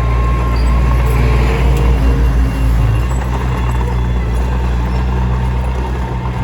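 Komatsu D21P crawler bulldozer's diesel engine running steadily with a deep low drone, and a faint squeal in the first two seconds or so.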